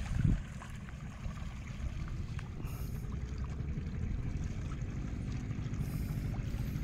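Small fishing boat's engine running steadily under way, a low, evenly pulsing rumble. A short low thump comes just at the start.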